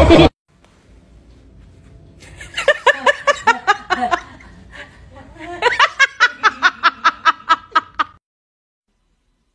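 A person laughing in two bouts of quick, evenly spaced 'ha-ha' pulses, the first about two seconds in and the second, longer and louder, about six seconds in, then cut off abruptly.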